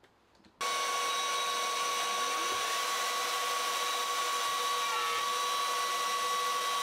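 Trend plunge router switched on and running steadily at speed as it plunges a mortise into 18 mm MDF through a mortising jig; it starts suddenly about half a second in and holds one even pitch.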